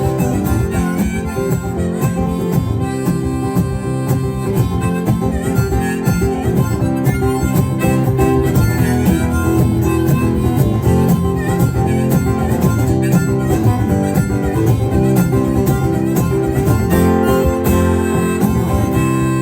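Harmonica playing an instrumental break over acoustic guitar accompaniment, with no singing, in a blues-folk song.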